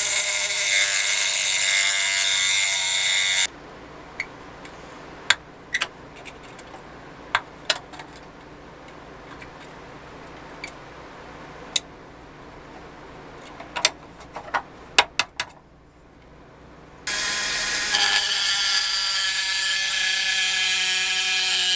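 Handheld rotary tool with a cut-off disc grinding into the metal hub of a toy wheel, a loud high whine. It stops about three and a half seconds in, leaving scattered sharp clicks and taps of metal on metal, and the cutting whine starts again about seventeen seconds in.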